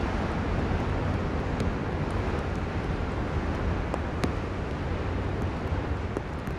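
Steady wash of city traffic on wet roads in the rain, with a constant low rumble and a few scattered light ticks.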